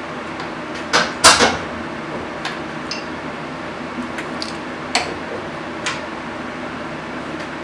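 Metal clinks and clanks of parts and tools being handled in a VW Beetle engine bay during engine installation. The loudest is a pair of clanks about a second in, followed by a few lighter clicks, all over a steady background hum.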